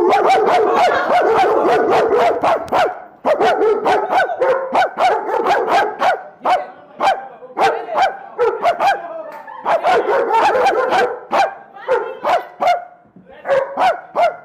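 German Shepherd barking loudly and repeatedly, with a man barking back at it in imitation. A dense volley of barks comes first, then rapid runs of short barks with brief pauses between them.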